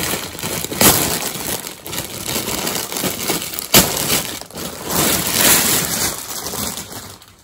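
Thin clear plastic packaging bag crinkling and crackling as it is handled and pulled open to take out a fleece jacket, with sharp crackles now and then, the sharpest a little under four seconds in.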